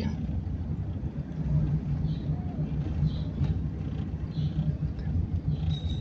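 Car engine and tyres heard from inside the moving car's cabin: a steady low hum.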